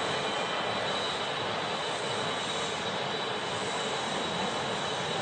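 Rail shunting locomotive hauling freight wagons loaded with large steel pipes: a steady rolling noise with a faint high whine.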